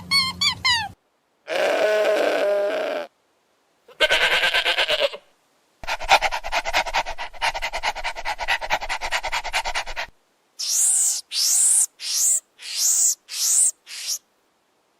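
Farm animal calls cut one after another with short silences between. First comes a bleat-like pitched call, then another short call, then a long, rapidly pulsing call. Last comes a run of six short, high, falling cries.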